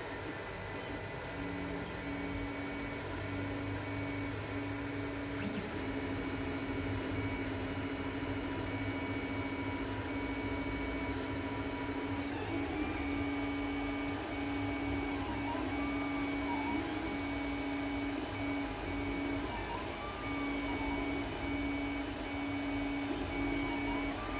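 Creality Ender 3D printer running: a steady motor whine that breaks off and starts again, over a low hum. From about halfway, short whines rising and falling in pitch repeat as the print head moves.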